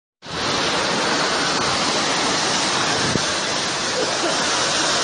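Floodwater rushing in a torrent across a street: a loud, steady rush of water that cuts in just after the start.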